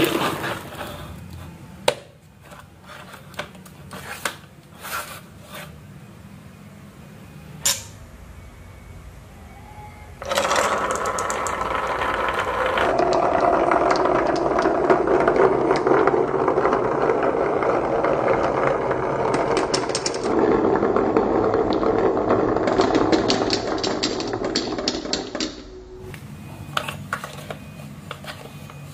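Marbles clicking on a wooden marble run track with scattered single clacks, then about ten seconds in a sudden, continuous loud rattling from the run that lasts about fifteen seconds before falling back to scattered clicks.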